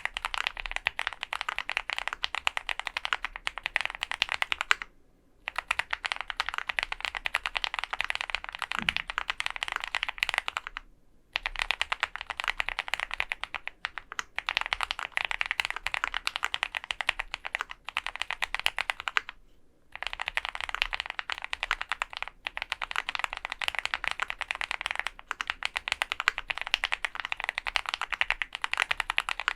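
Fast typing on a custom OwLab Mr. Suit mechanical keyboard with lubed Gateron Milky Yellow Pro linear switches, GMK keycaps, an aluminium plate and foam dampening: a dense stream of keystroke clacks, broken by short pauses about five, eleven and nineteen seconds in.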